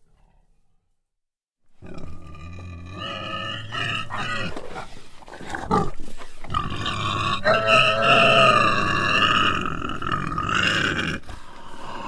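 An animal squealing. After a second or two of silence come shorter rough squeals, then a long, loud, wavering squeal from about six to eleven seconds in.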